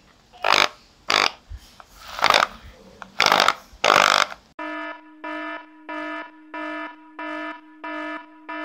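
A faulty Bosch GSB 10 RE corded hammer drill switched on in about five short bursts, a harsh buzz each time, its motor sparking unusually while the chuck does not turn: a fault the repairer puts down to the armature, not the carbon brushes. About halfway in, an electronic warning beep starts, one steady tone repeating about one and a half times a second.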